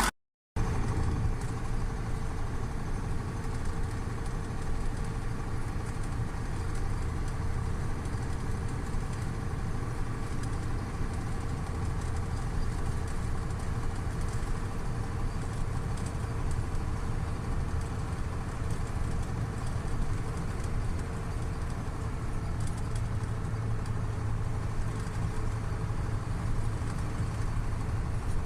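Rebuilt KAMAZ 740.13 V8 turbodiesel running steadily during break-in, after a repair with a new piston set.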